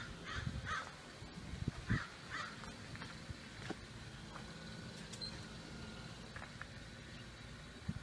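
Birds giving harsh calls, several in quick pairs during the first two and a half seconds, then tailing off, with a few dull low thuds.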